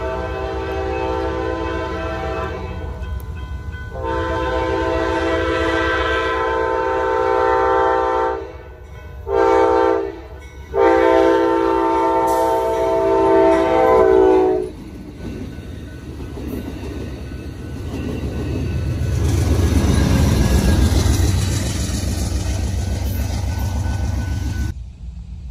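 Amtrak diesel locomotive sounding its multi-note chord horn in the grade-crossing pattern: two long blasts, a short one and a final long one. The train then rumbles past with wheels clattering over the rail joints, loudest about twenty seconds in, and the sound cuts off suddenly near the end.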